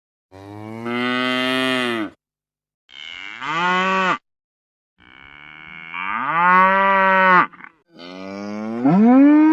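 Ox mooing four times, each call rising in pitch and then holding. The calls are cut off abruptly, with silence between them.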